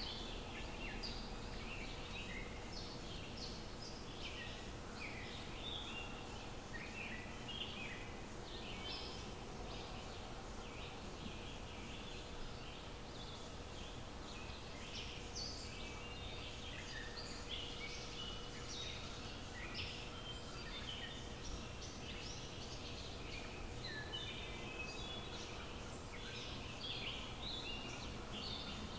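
Several small birds singing, with many short, high chirps and trills overlapping throughout, over a faint steady hum and low outdoor background noise.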